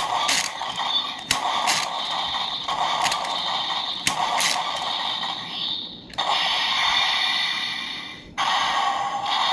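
Ultraman Blazar Chilsonite Sword toy playing its electronic sound effect through its small, tinny built-in speaker: a run of sharp hits over the first six seconds, then longer held effects with a short break about eight seconds in. This is the sword's third effect with the Fardran stone, triggered by pulling the lever five times.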